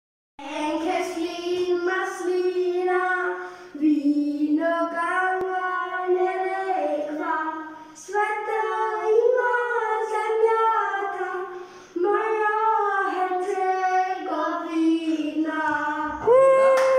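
A high voice singing an unaccompanied melody in phrases of long held notes, with short breaks about every four seconds.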